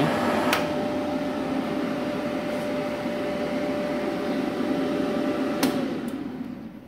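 A Multipro TIG welder and its WC 10L-SD water cooler running with a steady hum from their fans and pump. A switch clicks about half a second in, and another clicks near the end, after which the hum dips in pitch and winds down as the machine is switched off.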